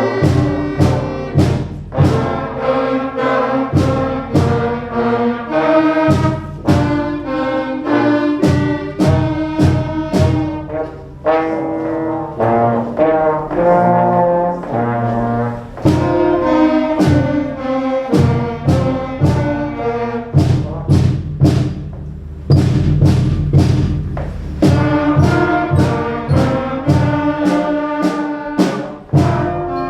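Beginning school concert band playing a simple melody, with brass carrying it over a steady beat of percussion strokes.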